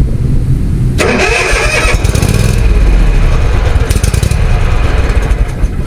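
Zero-turn lawn mower's small gasoline engine catching about a second in, then running steadily after a carburetor and fuel-system repair.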